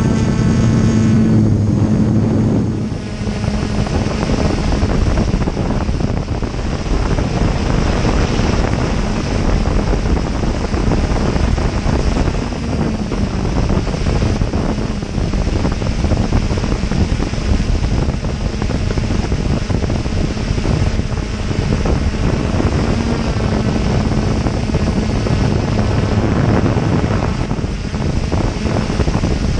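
Aton drone's motors and propellers whirring steadily, heard from the camera mounted on it, with wind buffeting the microphone; the motor hum shifts in pitch a little at times.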